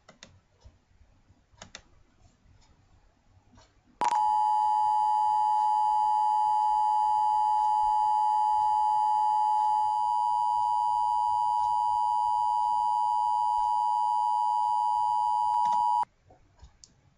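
Emergency Alert System two-tone attention signal, the alarm that marks an emergency broadcast: a steady dual tone just under 1 kHz that starts suddenly about four seconds in, holds for about twelve seconds and cuts off abruptly. Faint clicks come before and after it.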